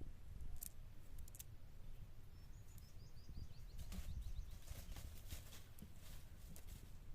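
Faint outdoor ambience: a steady low rumble with scattered sharp clicks and ticks, and a bird giving a quick run of short, high chirps about two and a half seconds in.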